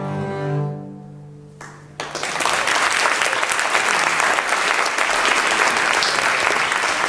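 A double bass ensemble's final bowed chord is held and dies away, and about two seconds in the audience breaks into loud, steady applause.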